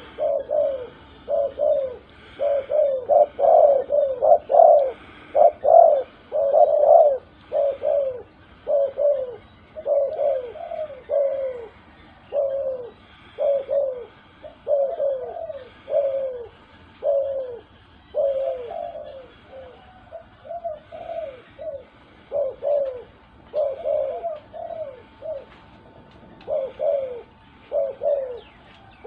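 Spotted dove cooing over and over: short falling coos in groups of two or three, repeated through the whole stretch. The keeper presents it as the genuine 'ku-gom' coo, a call style prized by Thai dove keepers.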